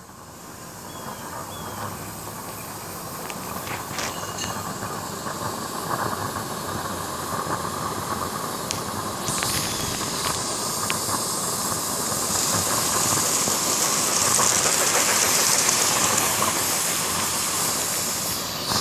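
Accucraft Edrig live-steam garden-railway locomotive running with a steady hiss of steam, growing louder as it comes closer. A sharper, higher hiss joins about nine seconds in.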